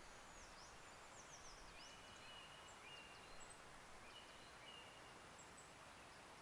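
Faint distant birdsong over a quiet background hiss: a run of quick, high, downward-sweeping chirps in the first second and a half, then a few short level whistles scattered through the middle.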